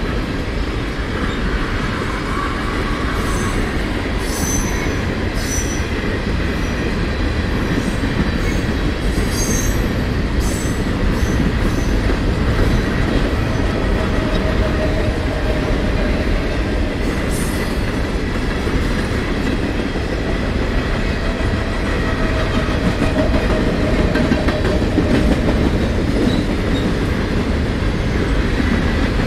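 CSX freight train rolling past: a steady rumble of wheels on rail, with short high wheel squeals and clicks scattered through the first part and again a little past the middle.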